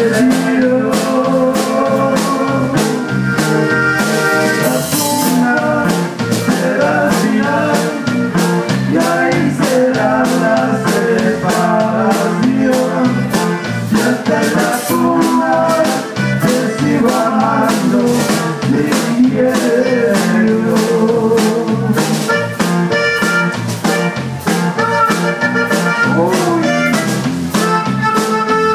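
Live band playing: an accordion carries the melody over acoustic guitar, electric bass and a drum kit keeping a steady beat.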